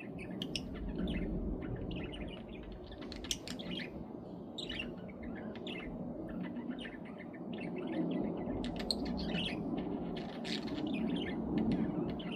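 Pet budgerigars chattering, with a continuous run of short, rapid chirps and warbles, over a steady low background rumble.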